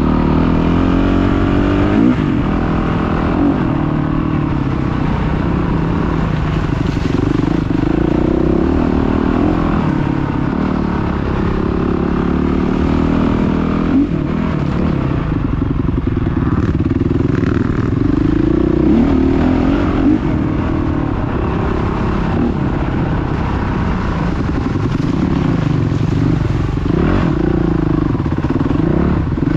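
Enduro dirt bike engine running under load on a rough trail, its revs rising and falling with the throttle and gear changes. A few short knocks come from the bike jolting over bumps.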